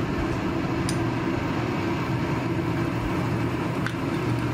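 A steady low mechanical hum, with one light click about a second in.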